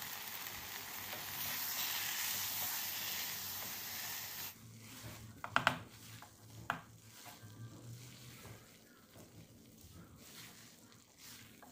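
Curry potatoes sizzling in oil in a non-stick pot as a freshly added wet paste of tamarind, green chilli, coriander and garlic cooks; the steady hiss dies down after about four and a half seconds. A silicone spatula then stirs the potatoes, with two sharp knocks against the pot about halfway through.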